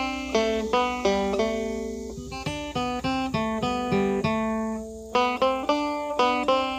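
Background music: a guitar picking out a melody, one plucked note after another, each ringing out and fading.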